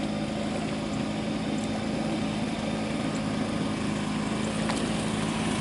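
A blower's engine running at a steady speed, pushing a canoe along as its only propulsion.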